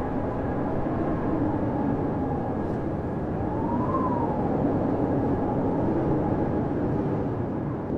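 Blizzard wind howling in a steady rush, with a whistling tone that rises and falls about halfway through.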